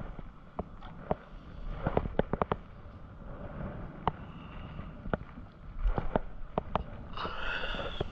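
Irregular sharp clicks and knocks from a spinning rod and reel being handled and jigged from a small boat, close to the microphone. A short whirring tone comes in about seven seconds in.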